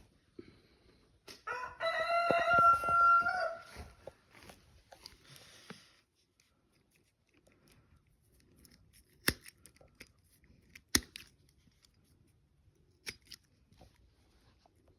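A farm animal gives one long, drawn-out call of about two seconds, steady in pitch. Later come a few sharp, separate clicks.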